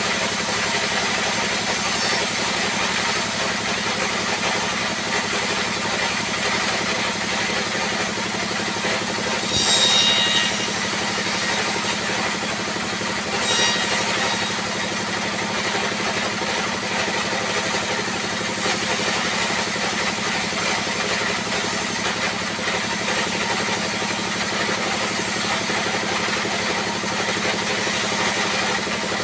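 Sawmill saw machinery running, with a steady drone and a high whine. It grows louder and harsher twice, about ten and fourteen seconds in, as the blade cuts into the timber.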